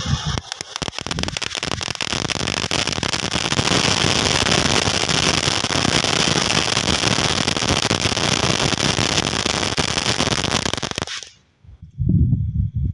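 A firework crackling continuously as a dense, rapid stream of small pops, which stops abruptly about eleven seconds in. A few low thumps follow near the end.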